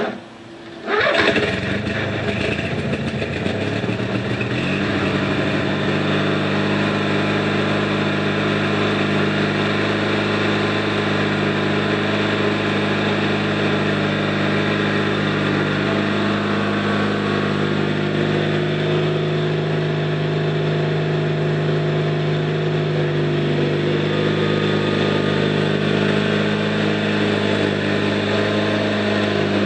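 Noma 18 hp riding mower engine catching on the key about a second in, then running steadily as the mower drives off.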